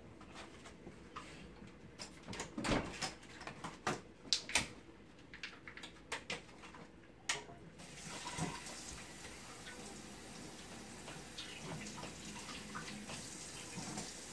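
Crisp clicks and crackles as croissant sandwiches are set onto romaine lettuce leaves on a platter. About eight seconds in, a steady hiss of running tap water starts.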